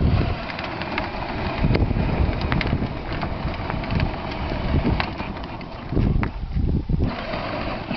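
Battery-powered Barbie ride-on Jeep running, its small electric motor and hard plastic wheels rolling over asphalt, with wind buffeting the microphone.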